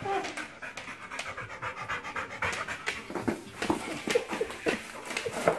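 A large dog panting while nosing and mouthing a small paper piñata, with the crinkle and scratch of the paper and quick clicks and knocks against the wooden floor.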